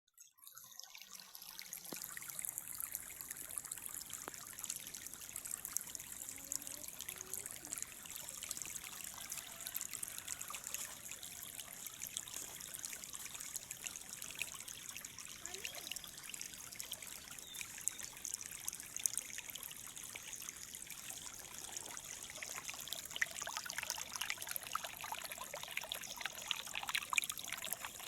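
Water of a small river flowing and babbling steadily over stones, with a fine trickling splash.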